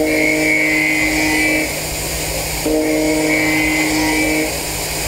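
CNC milling cutter machining a crankshaft on a five-axis machine: a steady machining whine over cutting noise, its pitched tones cutting in and out about every three seconds as the tool engages the work.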